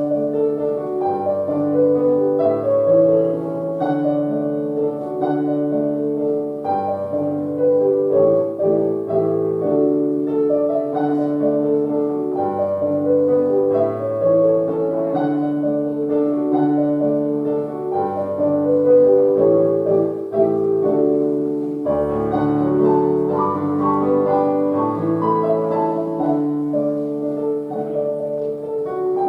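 Solo piano playing a slow, gentle piece of held chords and melody, with a lower bass note entering about two-thirds of the way through.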